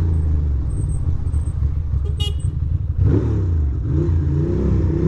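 2006 Ducati Monster 620's air-cooled L-twin engine running at low speed in city traffic, the revs rising and then falling about three seconds in. A short high-pitched squeak a little past two seconds.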